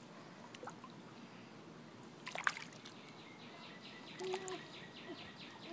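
Swimming-pool water trickling and lapping faintly, with one short splash about two and a half seconds in.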